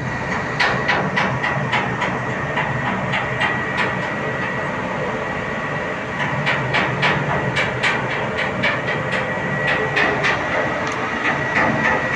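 Steady mechanical running noise with a thin high whine, with sharp clacks two or three times a second over it.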